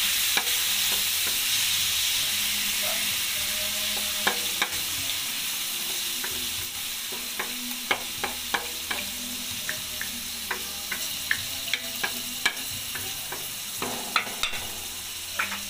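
Raw chicken pieces sizzling in hot oil in a wok, sautéing with garlic and onion, while a wooden spoon stirs them. The spoon knocks and scrapes against the pan in frequent short clicks, more of them in the second half.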